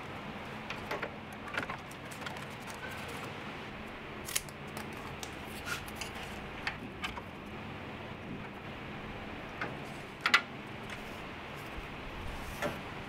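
Scattered light clicks and taps of an aluminium oil cooler and a plastic kidney grille handled against the car's front panel, over a steady background hiss. A sharper click comes about ten seconds in.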